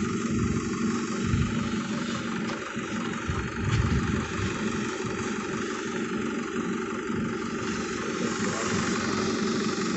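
Isuzu D-Max diesel engine idling steadily, with a steady hiss over it as steam from a pressure-cooker hose is played onto the fuel filter to thaw diesel gelled by sub-zero cold.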